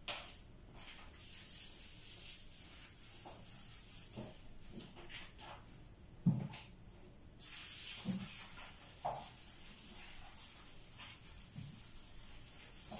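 Scrubbing a bleach-soaked bathtub by hand: a run of short, scratchy scouring strokes, coming thicker in the second half. About six seconds in there is a single thump as she steps into the tub.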